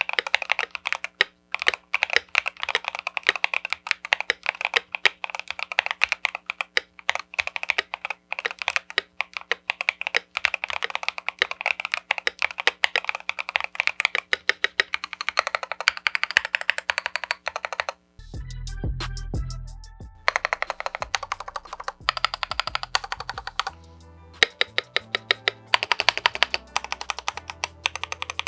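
Fast typing on a modded LTC Nimbleback NB831 75% mechanical keyboard fitted with Leobog switches: a dense run of keystrokes that pauses briefly about two-thirds of the way through, then resumes. Background music plays underneath.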